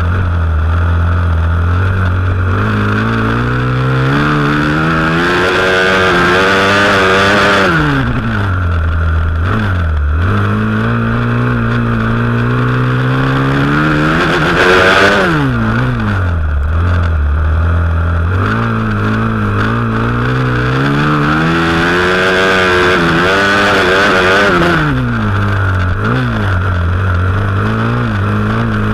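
Flat-track racing motorcycle engine heard from the rider's helmet. It revs up steadily along the straights and drops sharply each time the rider backs off for a turn, three times in all, under a steady rushing noise.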